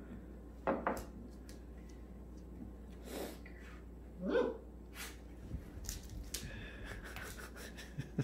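10-week-old Dandie Dinmont puppies playing and giving about three short yaps, the loudest a little over four seconds in.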